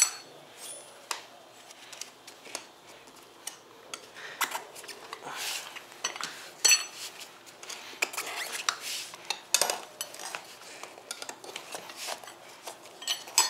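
A metal tyre lever scraping and clinking against the rim of an electric scooter's hub-motor wheel as a stiff tube tyre is pried off, with irregular scrapes and clicks and a few sharper ringing metal strikes.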